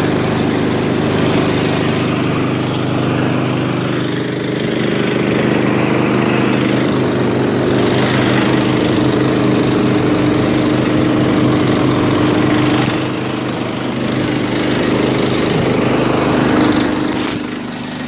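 Engine idling steadily, with an even low hum and no change in speed.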